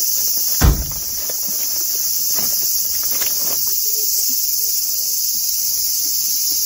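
Steady high-pitched chorus of cicadas droning without a break. A single dull thump sounds under a second in.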